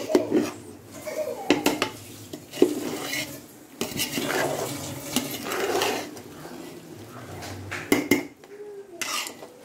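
Perforated metal ladle scraping through cooked rice and knocking against the side of a large metal pot: freshly dum-cooked biryani being turned over and fluffed. Several sharp clanks of the ladle on the pot stand out above the scraping.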